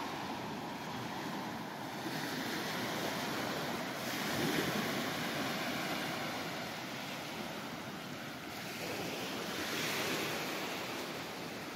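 Small waves breaking and washing up a sandy beach, with wind on the microphone; the surf swells louder about four seconds in and again near the end.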